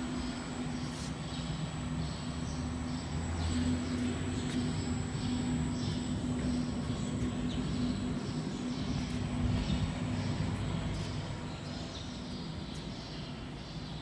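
Steady electric machine hum from a CNC wood router, with a few low pitched lines and a thin high whine above them; it grows a little louder through the middle, then eases off near the end.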